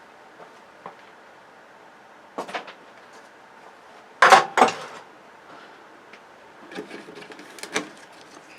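Knocks and clatter from parts of a flat-screen television being handled during dismantling, with a loud double clunk about halfway through and a run of lighter clicks near the end.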